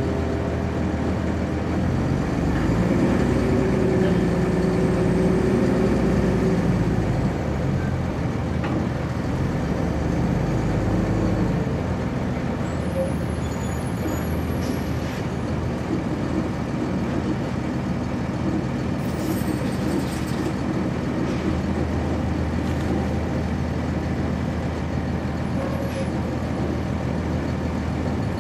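Cummins ISC inline-six diesel of a 1999 Nova Bus RTS transit bus, heard from inside the cabin as the bus drives. The engine note climbs in pitch a couple of seconds in and holds, then drops back to a steadier, lower run about halfway through.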